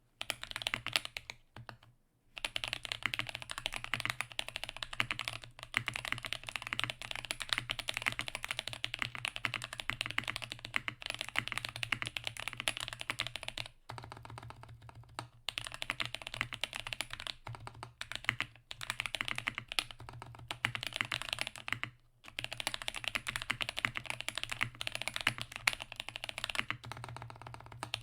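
Continuous fast typing on a Frog TKL mechanical keyboard with tactile Holy Boba switches: a dense stream of key clacks, with short pauses about two seconds in, halfway through and about three-quarters through.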